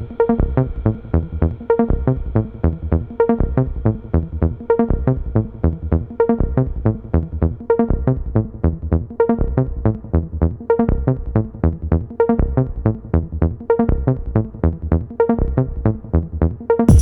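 Electronic dance music with a steady, fast beat and a short repeating loop, sounding muffled with its highs filtered out.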